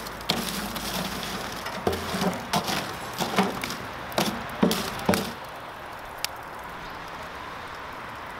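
Burning lump charcoal being raked and knocked about with a metal rod: a string of sharp clinks and cracks as the coals tumble and hit each other, stopping about five seconds in.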